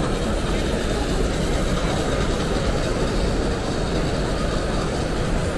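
Steady, even background noise of a large exhibition hall, with no single sound standing out.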